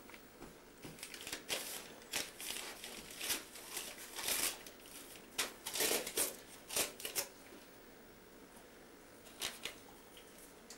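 Christmas wrapping paper crinkling and tearing as a Doberman rips into a present, in a quick run of crackling bursts, then a pause and two short rustles near the end.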